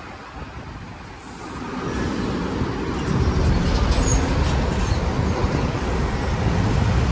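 Heavy road traffic passing close by: a truck and then a city bus drive past, their engines running, with the noise swelling about two seconds in and staying loud.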